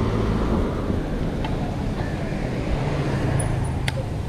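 Steady road traffic noise: vehicle engines running with a low rumble, and a few short clicks, the sharpest one near the end.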